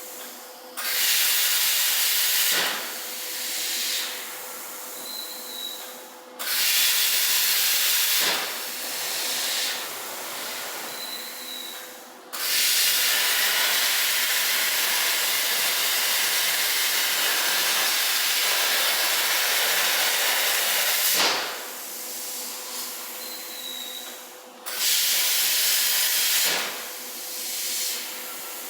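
CNC plasma cutter torch cutting in four runs: a loud, steady hiss of the plasma arc that starts and stops abruptly, the longest run lasting about nine seconds. Between cuts a fainter, fading hiss of air carries on.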